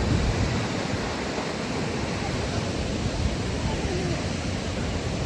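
Steady rushing noise of a large waterfall, falling water heard close by.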